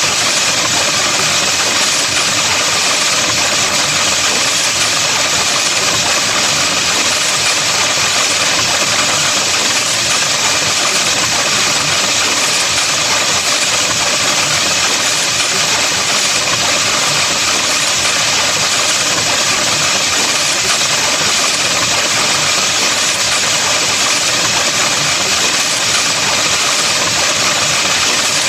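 A steady, loud electronic drone, a dense buzzing hiss with faint steady tones in it, holding the same level and pitch throughout without a break.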